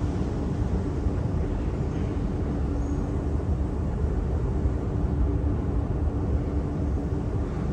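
Long metro-station escalator running, a steady low rumble with a faint hum, heard while riding it.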